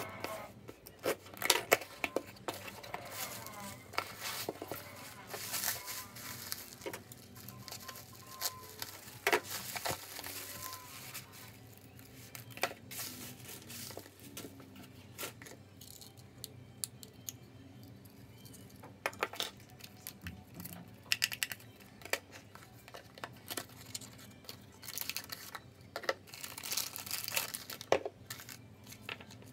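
Unpacking a parcel by hand: packing tape torn from a cardboard box, plastic wrapping crinkling, and small items set down on a wooden desk with sharp clicks and knocks. The tearing and rustling come in stretches, busiest in the first few seconds and again near the end.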